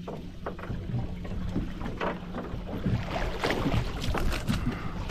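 Water splashing as a hooked fluke (summer flounder) thrashes at the surface beside the boat and is lifted out on the line. The splashing starts about two seconds in and grows louder toward the end, over a steady low hum.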